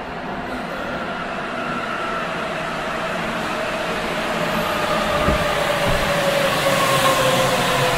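Sapporo Toho Line rubber-tyred subway train pulling into the station, growing steadily louder as it comes alongside. Its motors whine in several tones that slide slowly down in pitch as it slows to a stop, over a hiss that swells as the cars pass.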